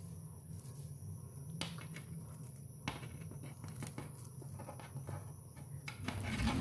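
Faint rustling and a few light clicks of twisted synthetic rope being handled and its strands tucked back into the lay for a back splice, over a steady low hum. A louder low rumble comes in near the end.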